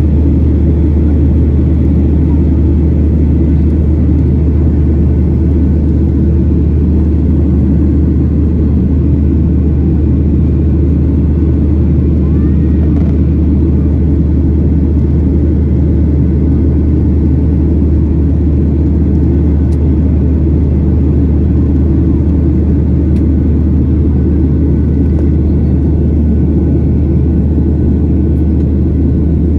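Boeing 737-800 cabin noise heard from a window seat over the wing while climbing after takeoff: the steady, loud low rumble of the CFM56-7B turbofan engines and the airflow over the fuselage.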